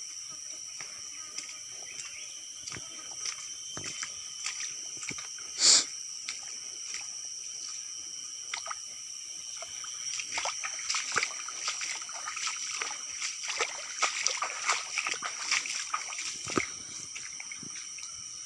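Footsteps splashing and sloshing in a shallow stream, coming thicker in the second half, over a steady high drone. About six seconds in there is one brief, sharp, high-pitched sound, the loudest moment.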